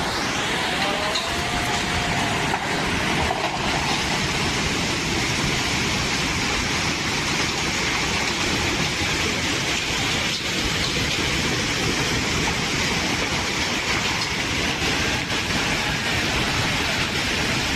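Heavy hailstorm: a dense, steady roar of hail and rain pounding down, with a few faint sharp ticks of stones striking.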